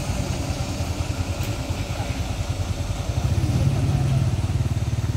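Vehicle engines idling in a traffic queue, a steady low throb that grows louder about three seconds in, with faint voices over it.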